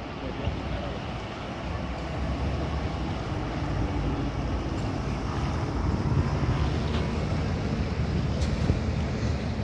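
A steady low engine rumble under wind noise on the microphone, growing a little louder about two seconds in.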